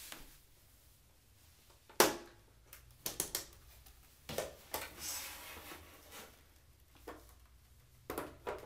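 Hard clicks and knocks as the stand base of a Samsung S27A850D monitor is turned and fitted onto the stand neck. A sharp knock about two seconds in is the loudest; a few lighter clicks follow, then a brief scrape in the middle and more clicks near the end.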